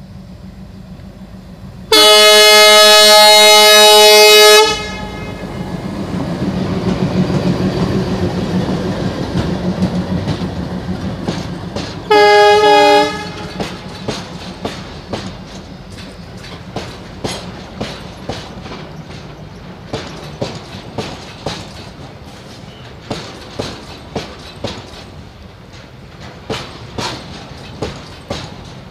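ALCO diesel locomotive sounds one long horn blast of about two and a half seconds, then its engine rumble swells as it passes, with a second short horn blast about twelve seconds in. After that the wheels of the empty container flat wagons clatter over the rail joints in a steady run of clicks.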